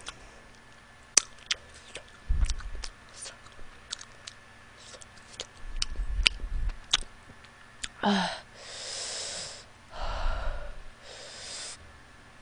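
Small wet mouth clicks from chewing and finger-licking with a few low thumps, then three or four long breathy hisses through the mouth in the second half, as the eater breathes through the burn of very spicy chicken wings.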